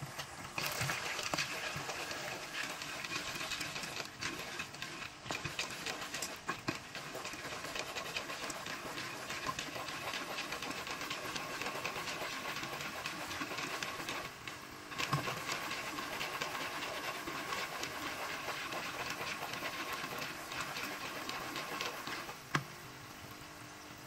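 Popcorn kernels sizzling and crackling in hot oil and chocolate syrup in a nonstick pot, before any kernels have started to pop. There is a sharp click near the end, after which the sizzle is quieter.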